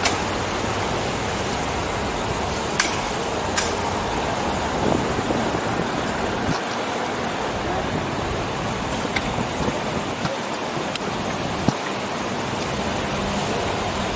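City street traffic noise: a steady rush of passing cars and trucks, heard from a bicycle riding among them, with a few sharp clicks.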